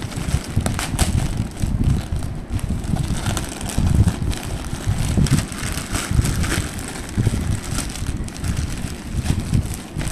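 Plastic courier mailer bag crinkling and tearing as it is pulled open by hand, with irregular crackles and dull bumps of the parcel being handled.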